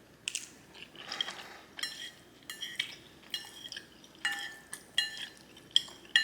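Metal fork clinking and scraping against a dish while working through a plate of garlic noodles: a quick run of short ringing clinks, about two or three a second, with a longer scrape about a second in.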